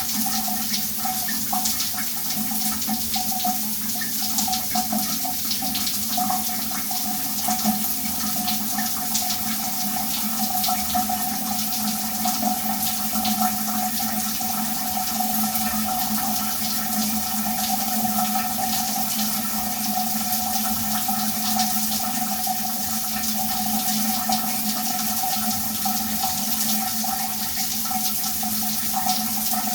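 Shower running steadily, water spraying and splattering into a tub or tray, with a continuous hiss and a steady hollow hum.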